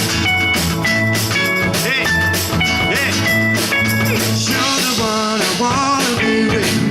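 Instrumental passage of an upbeat pop-rock song, with a steady drum beat, bass and guitar and no lead singing.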